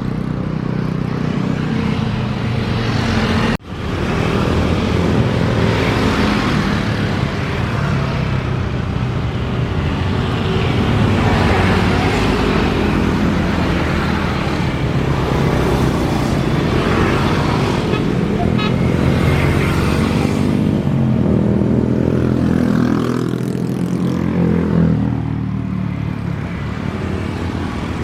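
Steady road traffic noise: cars and motorcycles running past, with a brief drop-out about three and a half seconds in.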